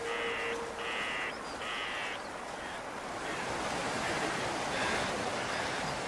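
A bird giving three harsh, crow-like caws in quick succession, each about half a second long, over a steady hiss.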